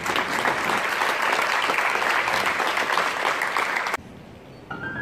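Audience applauding with many rapid claps, which stop abruptly about four seconds in. Near the end a keyboard music track begins with held notes.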